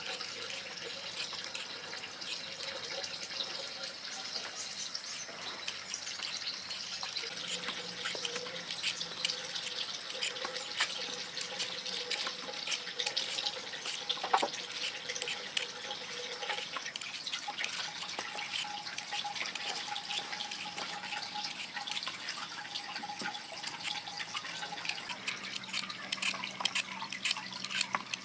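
Running water, splashing and dripping steadily, with many small clicks and splashes that grow busier partway through.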